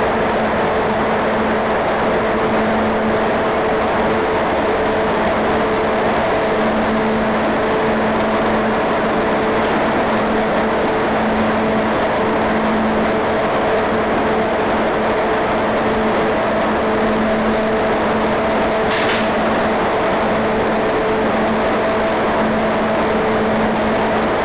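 Automatic box freezing machine running: a steady mechanical noise of fans and motors with a constant low hum. A faint click comes about nineteen seconds in.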